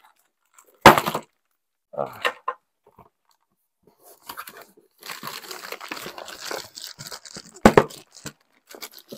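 Cardboard and plastic toy packaging being handled: plastic bags crinkling and cardboard rustling and tearing, with two sharp knocks, about a second in and near the end.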